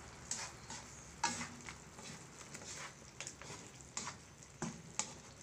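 Spatula stirring and scraping through fish curry with eggplant and okra in a wok, making about a dozen irregular clicks and scrapes against the pan over a faint sizzle from the simmering sauce.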